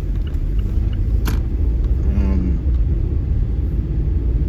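Steady low rumble of a car driving, heard from inside the cabin. A light, even ticking at about three a second runs through the first second, and a sharp click comes about a second in.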